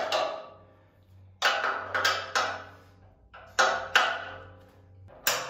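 Sharp metallic clicks and clanks in two short clusters, then one more near the end: a click-type torque wrench and socket on the chassis bolts, the wrench clicking off as each bolt reaches its set torque.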